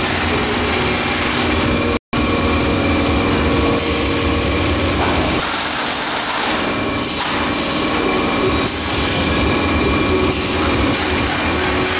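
Automatic case erector and carton sealing machine running: a steady mechanical noise with a thin steady whine over it, broken by a split-second dropout about two seconds in.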